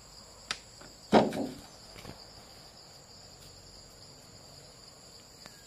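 Steady chorus of insects shrilling at two high pitches. A short click comes about half a second in, and a louder brief knock just after a second.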